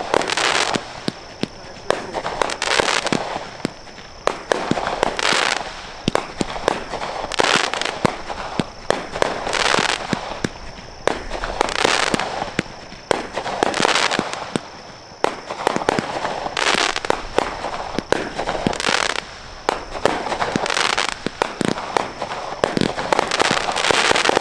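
A 16-shot 200-gram consumer firework cake firing shot after shot, about one every two seconds. Each shot is a sharp bang followed by a short spell of crackling as the stars break.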